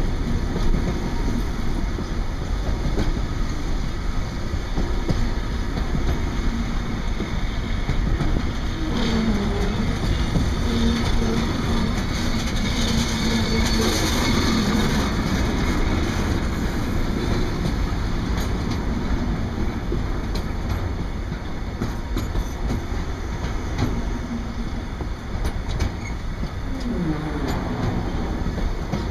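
Container wagons of a long freight train rolling past, a steady rumble with the wheels clicking over the rail joints. A held tone rises out of it for a few seconds around the middle, and a short gliding tone comes near the end.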